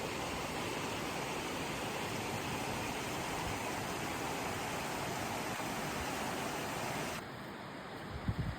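Steady rushing of river water, an even hiss with no rhythm. About seven seconds in it drops abruptly to a quieter, duller level, and low thuds of wind on the microphone follow near the end.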